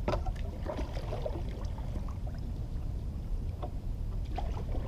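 Wind buffeting the microphone as a steady low rumble, with a few scattered light knocks and clicks.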